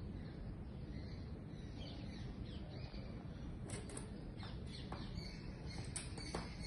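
Quiet background ambience with a steady low rumble, a few faint short high chirps, and several light ticks in the second half.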